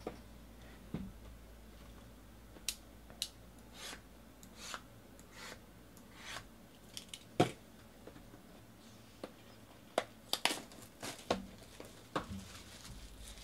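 A small cutter slitting the shrink-wrap on sealed card boxes: a run of short scratchy strokes and light taps. Near the end the loose plastic wrap crinkles as it is peeled off.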